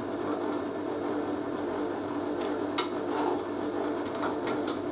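A steady low hum runs throughout, with a few light clicks and knocks about three seconds in and again near the end, as someone gropes under a washing machine for a piece of cloth.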